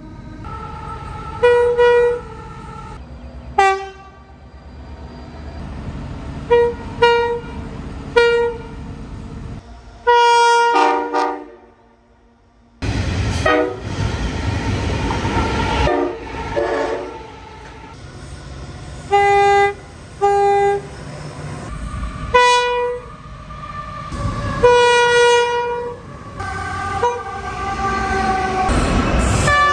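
Train air horns sounding chords of several tones at once: a string of short blasts and toots over the rumble of moving trains. About ten seconds in there is a longer blast that drops in pitch, then a brief break, then more short blasts from another train.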